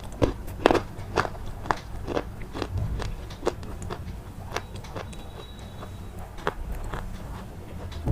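Repeated sharp crunches, about two a second at first and then more spread out, over a steady low hum.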